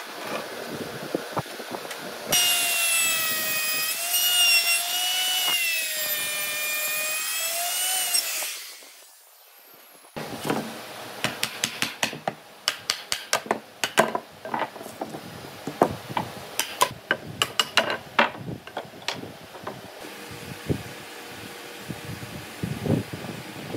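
A small power tool runs with a high whine for about six seconds, its pitch wavering as it works. After a short pause, a wooden mallet knocks repeatedly on a wooden frame joint to drive it together. Near the end, only a few light knocks are heard as wooden pieces are handled.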